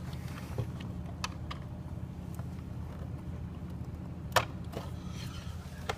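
Clicks and taps of a power cable and plug being handled and pushed into the back of a router, the sharpest click about four and a half seconds in, over a steady low hum.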